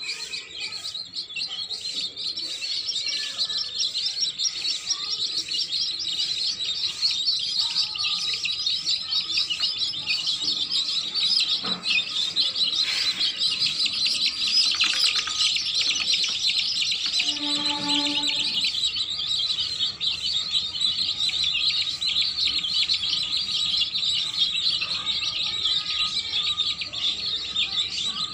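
Baby chicks peeping rapidly and without pause, a dense high-pitched chorus of many overlapping chirps, with a short lower-pitched tone about two-thirds of the way through.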